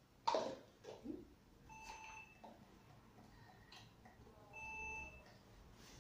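Short electronic beeps, each about half a second long, made of a few steady tones together, sounding twice about three seconds apart. A loud sharp knock comes just after the start.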